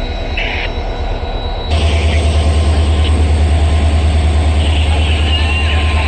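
A railway locomotive running at the coaches, with a deep rumble that throbs evenly several times a second and a hiss above it. About two seconds in the sound cuts abruptly to a louder, closer take of the same rumble.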